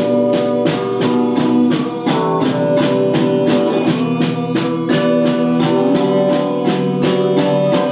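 Band music with guitar and drum kit over a steady beat.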